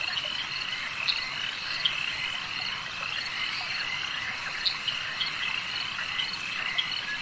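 A chorus of frogs calling: many short, repeated high calls overlapping in a continuous band, with a few brighter chirps standing out now and then.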